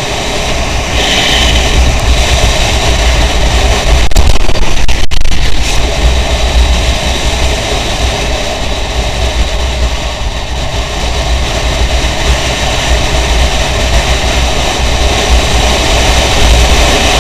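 Steady rushing wind noise on the microphone of a camera riding on a moving motorcycle, with the motorcycle's engine running underneath; a brief louder gust about four seconds in.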